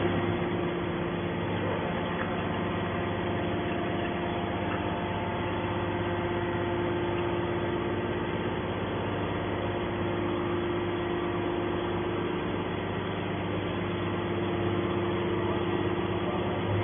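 Hydraulic can baler's electric motor and pump running with a steady hum.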